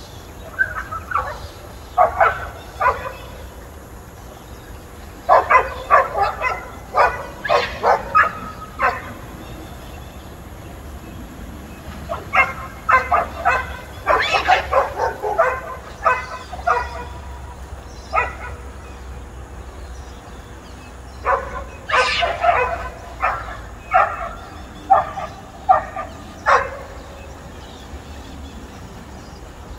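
Several dogs barking in rapid bursts of many short barks, with pauses of a few seconds between bursts, as they go after an otter in the water. The barking stops near the end.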